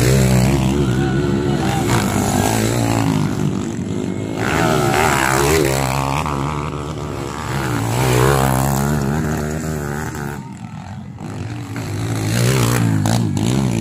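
Motocross dirt bike engines revving hard and easing off again and again as the bikes race over the track. The sound dies down for about a second about two-thirds of the way through, then rises again.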